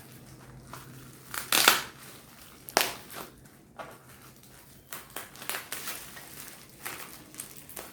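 Packaging crinkling and rustling in irregular bursts as a newly delivered kitchen item is handled and unwrapped, with the loudest crackles in the first three seconds.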